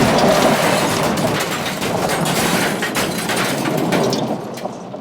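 Crash sound effect: a loud breaking and shattering with many sharp cracks and clattering debris, strongest at the start and dying away near the end.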